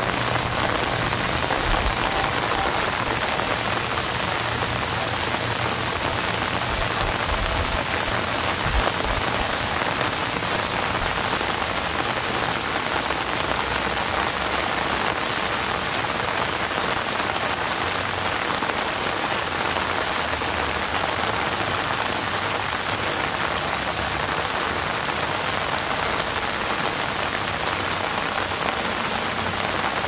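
Steady rainfall, an even hiss of drops that keeps up without a break.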